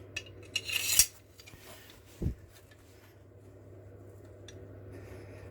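Iron pieces and tools being handled on a workbench: small metal clinks, a short scrape ending in a sharp metallic clink about a second in, and a dull thump a little after two seconds. Under it runs a steady low hum.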